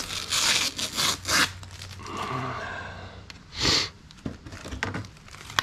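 Blue protective plastic film being peeled off a new door sill protector: a run of short ripping pulls in the first second or so, a softer rasp of film coming away, and one more pull just before the four-second mark.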